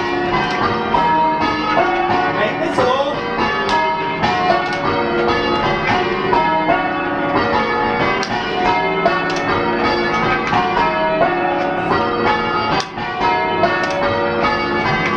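A heavy ring of six church bells, all cast in the 1600s, change ringing full-circle. The strokes follow one another in a steady, even rhythm, each bell still ringing on under the next, with a clonky, booming tone.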